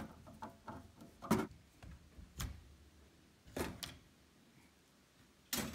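Scattered clicks and knocks of hands working a rubber water hose off inside a Viessmann Vitodens 100 combi boiler, about half a dozen irregular taps with the loudest about a second and a half in and near the end.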